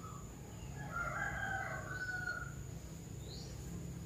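A rooster crowing once, faintly, about a second in: one drawn-out call lasting about a second and a half. A steady, thin, high-pitched insect drone runs underneath.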